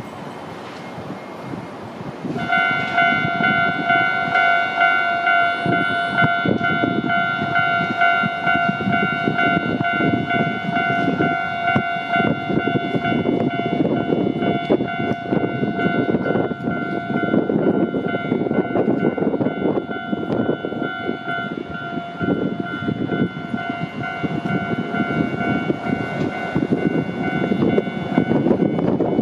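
Japanese railway level crossing's warning alarm starts about two and a half seconds in and rings steadily on one pitched tone, over a heavy rumbling noise.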